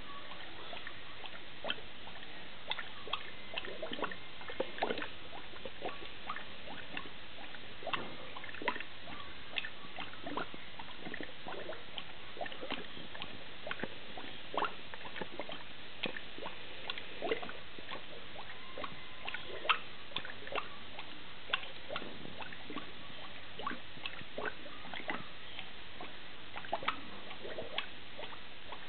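Plastic S-shaped three-bubble fermentation airlock bubbling: irregular small plops and gurgles, several a second, over a steady faint hiss. Gas is pushing through the water in the airlock, the sign of active fermentation.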